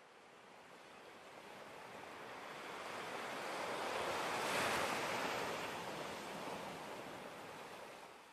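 Rushing noise of sea surf, swelling up to a peak about halfway and fading away again.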